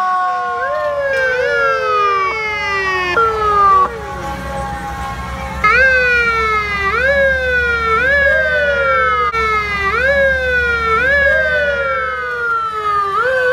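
Fire truck sirens sounding together in repeated sweeps that rise quickly and fall slowly, about one every three-quarters of a second, over a slower falling wail near the start. A truck's engine rumbles underneath partway through.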